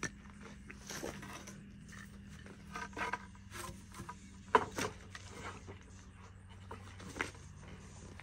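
Wooden boards being handled and set against a miter saw: a few scattered light knocks and scrapes of wood, the sharpest about four and a half seconds in, over a faint steady low hum. The saw is not running.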